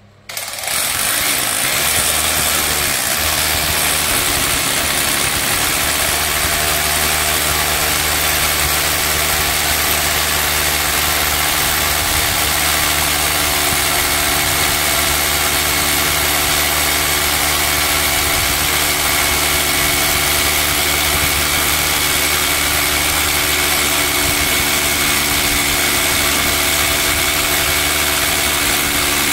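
Worx cordless mini rotary hammer drilling a 16 mm hole, starting about half a second in and running steadily without a break.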